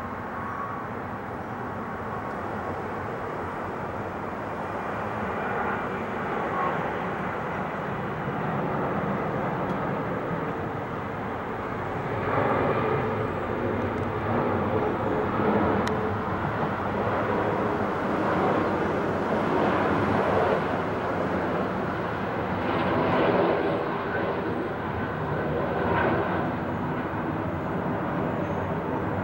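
Swiss Airbus A330 airliner flying low overhead with its landing gear down on approach: a steady jet engine roar that grows louder about twelve seconds in and stays loud, swelling several times, before easing slightly near the end.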